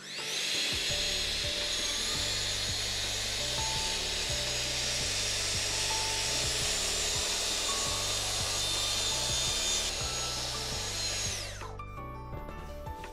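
Festool TSC 55 KEB cordless track saw spinning up, then cutting through wood along its guide rail for about eleven seconds, trimming the new rail's rubbery splinter guard strip flush with the blade; the motor winds down a little before the end. Background music plays underneath.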